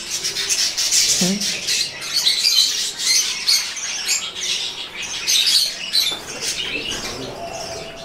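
Many budgerigars chattering and chirping together: a dense run of quick, high warbling chirps with no pause.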